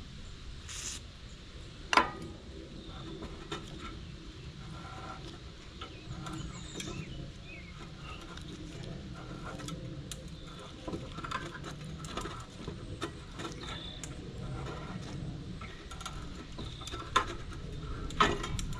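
A 1/2-13 threading die being turned by hand down a 1/2-inch rod, cutting new threads with a low scraping and small clicks, the die backed off now and then to break the bite. There are sharp clicks about two seconds in and twice near the end.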